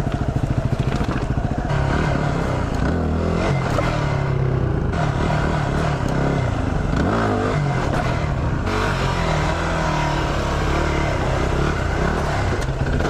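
Yamaha WR250R's single-cylinder four-stroke engine running while riding, its pitch rising and falling a few times with throttle and gear changes. Wind rushes over the microphone.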